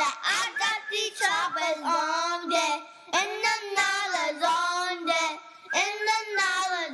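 A child's voice singing a melody unaccompanied, in long held notes with short breaks between phrases, with no beat or bass under it.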